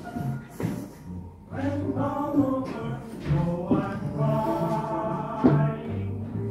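Music with singing: a sung melody over instrumental accompaniment.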